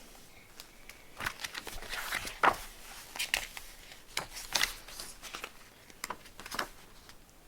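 A quiet room with a scattered series of soft clicks and light rustles, a dozen or so over several seconds, as of small handling noises.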